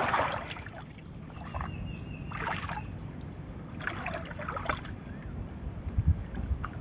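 Hands groping in shallow muddy canal water, giving soft, scattered splashes and sloshes over a low rumble.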